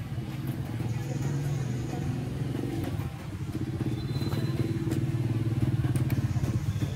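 A motor engine running steadily with a low, pulsing hum, growing somewhat louder in the second half.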